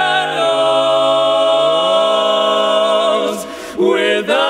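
Barbershop quartet singing a cappella in close four-part harmony, holding a long sustained chord while the bass line steps down and then glides back up, before a short break and a new chord on the word "shadows" near the end.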